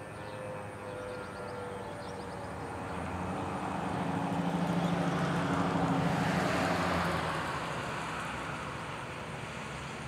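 ASC T-128 outdoor warning siren winding down, its tones fading and sinking slightly in pitch over the first few seconds. Then a road vehicle passes, swelling to loudest about five to six seconds in and fading away.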